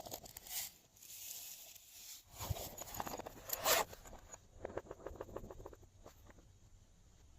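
Glossy slime being squished and stretched by hand, with wet squelches and quick runs of small clicking pops from air pockets, loudest in the middle and tapering off near the end.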